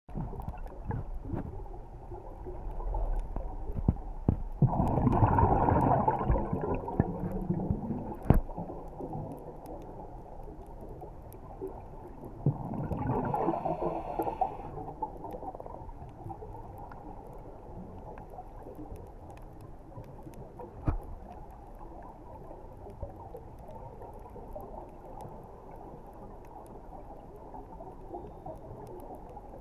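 Underwater ambience picked up by a camera in a waterproof housing: a steady, muffled rumble. Twice, about 5 s and 13 s in, it swells into a rushing burst of bubbles lasting two to three seconds, typical of a scuba diver's exhalation through the regulator. A few sharp clicks fall in between.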